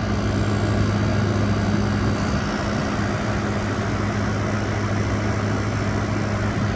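2023 General Electric 5,000 BTU window air conditioner running on high cool: a steady low hum from the compressor over the even rush of its fan and airflow, the unit working normally.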